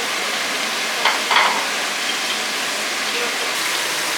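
Food sizzling in a pan: a steady frying hiss, with two short clinks a little over a second in.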